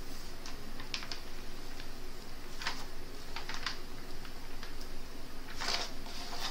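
Protective sheet on a diamond painting canvas being folded and rolled back by hand: scattered light clicks and crinkles, with three brief rustles in the second half.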